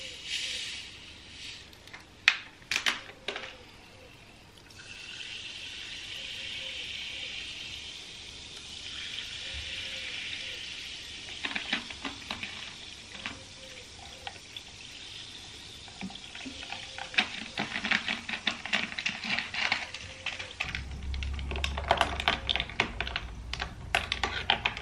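Sparkling water poured from a plastic bottle over ice and chopped kiwi in glasses, first a steady pouring hiss, then fizzing and crackling. Near the end a spoon stirs the ice, clinking against the glass.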